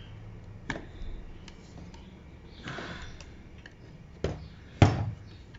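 Small clicks and knocks of a white ceramic power resistor and its wire leads being handled against an amplifier circuit board, with a brief breath noise about halfway through. The sharpest knock comes near the end.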